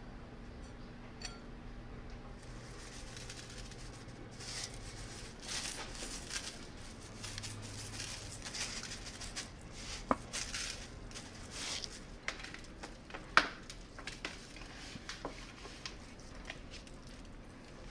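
Hands seasoning a raw whole chicken on a metal tray: seasoning pattering as it is sprinkled on in a series of short bursts, a few sharp clicks, the loudest near the end of that stretch, then the quieter rubbing of the seasoning into the skin.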